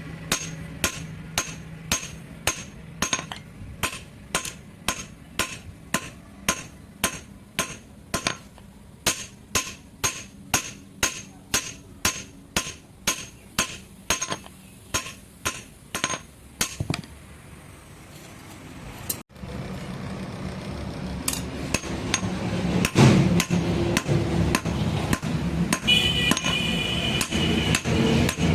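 A hand hammer striking metal in a steady rhythm of about two blows a second. After a short lull, louder and less regular hammering follows.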